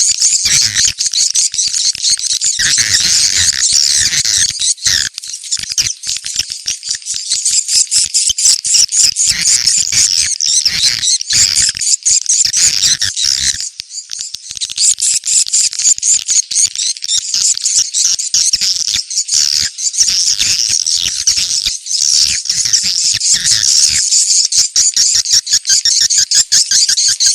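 Recorded swiftlet calls played as a 'ceklok' lure, used to draw swiftlets to a site for a swiftlet house. It is a dense, unbroken stream of rapid high-pitched chirps and clicks.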